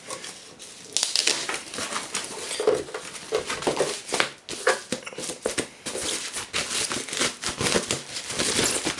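Thin white protective wrapping crinkling and rustling in irregular crackles as it is pulled off a small device and crumpled up by hand.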